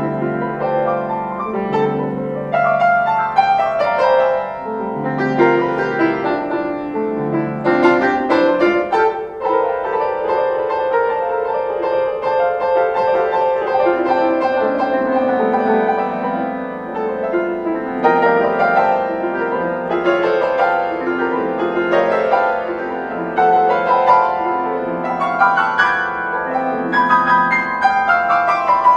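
Piano music: chords and melody notes played continuously, with many notes sounding together.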